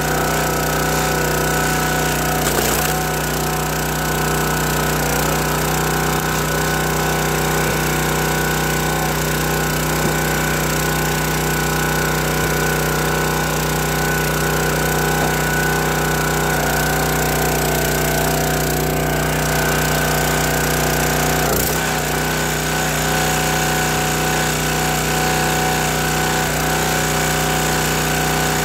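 Small gas engine of a County Line hydraulic log splitter running steadily, with a few short cracks or knocks, once about three seconds in and twice near the twenty-second mark.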